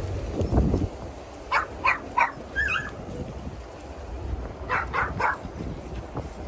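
A dog barking in two quick runs of three short barks, a few seconds apart, with a low thump about half a second in.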